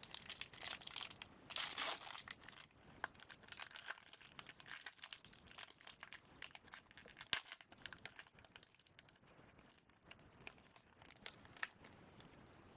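A trading card pack's wrapper is torn open and crinkled for about the first two and a half seconds. Quieter rustling and light clicks follow as the cards are handled and slid one behind another.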